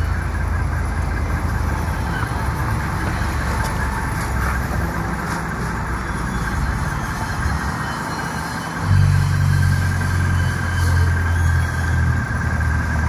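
City street traffic recording: a low engine rumble of passing vehicles, layered into a free improvisation. The rumble swells about nine seconds in, and a thin steady high tone sounds over it near the end.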